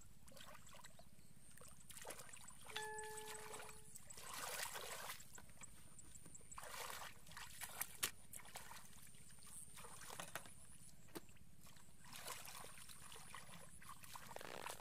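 Hands sloshing and splashing in shallow muddy water in short, irregular bursts as the mud is groped through for fish.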